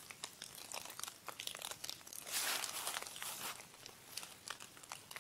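Scattered crackling and crunching in dry leaves and undergrowth, louder for about a second midway. The listeners take it for footsteps approaching from the bushes, though one says it might have been rain.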